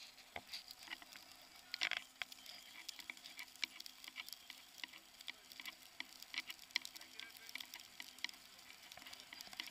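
Car tyres rolling over a snow-covered road, giving an irregular crackle of small sharp ticks, thickest about two seconds in, over a faint steady hum.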